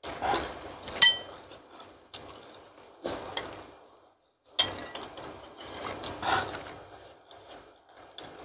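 Close-miked eating of instant noodles with meatballs: chewing in clusters with short pauses. A utensil strikes the bowl about a second in and rings briefly, with a second, smaller clink a little past the middle.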